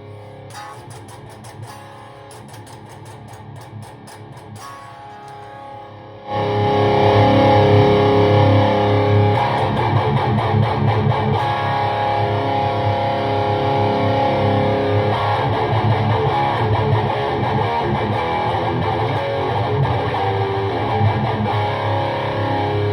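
Electric guitar (Jackson DKM2 with Seymour Duncan JB pickups) played through a PRS MT-15 V2 amp head into a 1x12 cabinet with a Celestion Vintage 30, heard as room sound. Softer picked playing gives way about six seconds in to much louder sustained chords.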